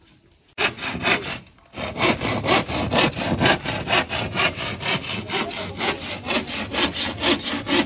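Hand saw cutting through a 12 mm plywood sheet with quick, rhythmic back-and-forth strokes. The sawing starts about half a second in, breaks off briefly, then runs on steadily.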